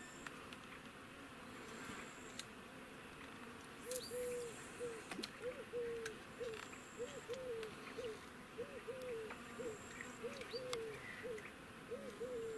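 Faint, short hooting calls, several a second in an uneven run, begin about four seconds in. Under them a faint high insect trill comes and goes every couple of seconds.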